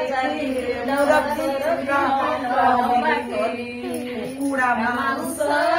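Women singing a traditional folk song together, with long held notes.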